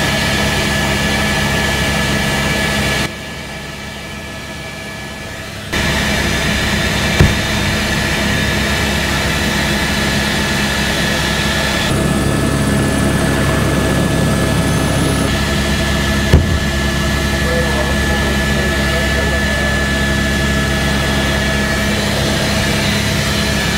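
Helicopter noise heard from inside the cabin: a steady engine and rotor drone, quieter for a few seconds near the start. Two brief sharp knocks come about a third of the way in and again past the middle.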